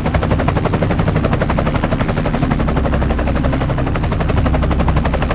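A fast, even rattle of clicks over a low, steady hum.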